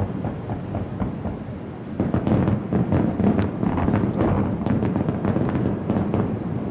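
Aerial firework shells bursting in a rapid barrage: many overlapping booms mixed with crackling, growing denser and louder about two seconds in.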